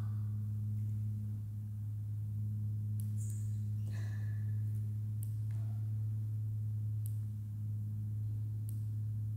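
A steady low drone: one deep pitch held without change, with a few faint ticks and brief soft sounds over it.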